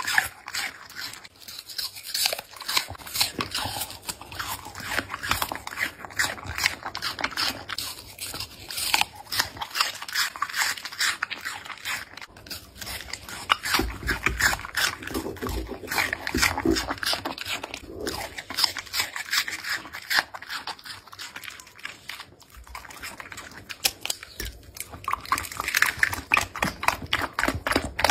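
Border collie puppy eating close to the microphone: a dense, irregular run of wet chewing, smacking and crunching bites of raw meat and apple slices, and licking at the plate near the end.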